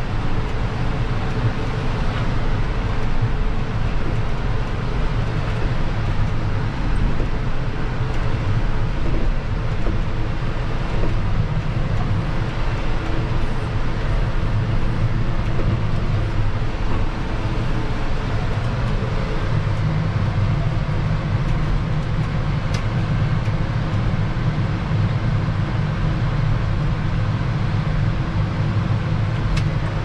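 John Deere 6155R tractor's six-cylinder diesel engine running steadily, heard from inside the cab as a continuous low drone. The low drone grows heavier about twenty seconds in.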